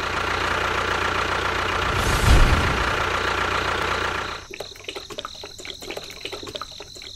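Small DC motor running with a steady whine, stopping about four seconds in, followed by light clicking.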